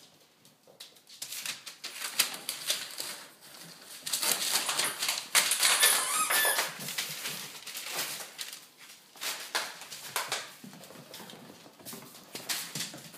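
Six-week-old Vizsla puppies playing on a wooden floor: scrabbling paws and many quick claw clicks, with a few brief high squeaks. The activity is busiest in the middle and thins out toward the end.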